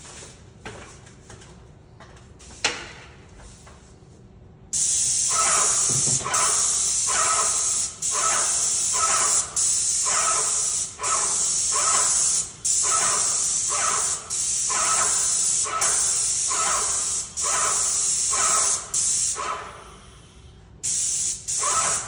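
Paint spray gun spraying black dryfall paint onto metal ductwork: a loud steady hiss that starts about a fifth of the way in and is broken by short gaps about once a second. It stops briefly near the end and starts again.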